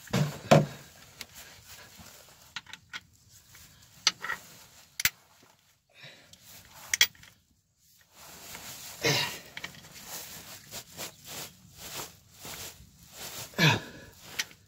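Metal tool handling: an old 3/4-inch square-drive ratchet breaker bar knocking and clicking as it is fitted onto the square drain plug of a Cat 955L crawler loader. Sharp knocks near the start, scattered taps, then a run of light ticks about three a second.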